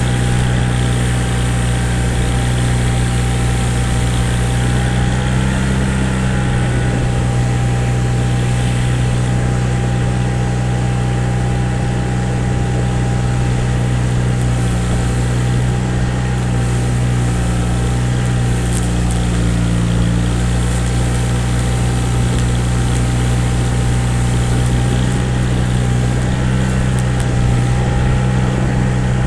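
Engine running steadily at a constant speed, with a slightly wavering whine above the low drone.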